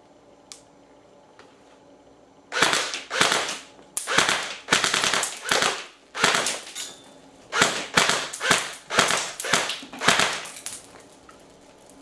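Airsoft Thompson 1928 replica electric gun (AEG) firing a string of about fifteen sharp shots, irregularly spaced, starting about two and a half seconds in and stopping near the end. A single faint click comes about half a second in.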